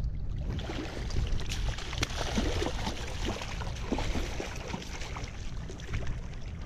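A hooked coho salmon thrashing at the surface, with irregular splashes of water as it is fought toward the net.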